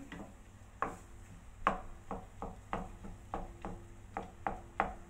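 Wooden spoon stirring minced pork in a stainless steel pot, scraping and knocking against the pot's side and bottom in quick repeated strokes, about three a second.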